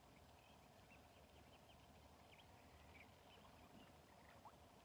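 Near silence, with faint, scattered bird chirps over a low background hum.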